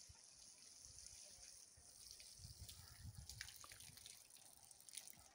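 Faint trickle of water pouring from a watering can onto freshly dug soil.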